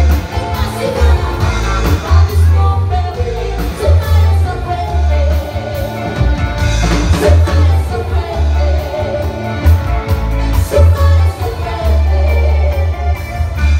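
Live band music played through a PA system: women singing into microphones over keyboard, drums and electric bass, with a heavy amplified bass.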